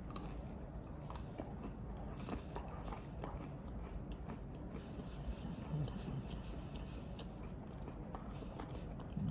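A person chewing a bite of a Feastables Crunch chocolate bar: faint crunching with small scattered clicks.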